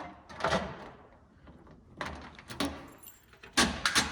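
Steel drawers of a Husky rolling tool chest being tugged and slid against their keyed lock, giving several sharp metal clunks and rattles. There is one clunk about half a second in, two more around two seconds, and the loudest cluster near the end.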